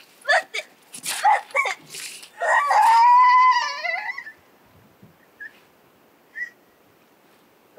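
A person crying out in anguish: a quick run of short sobbing cries, then one long wail held for over a second, which dies away about four seconds in.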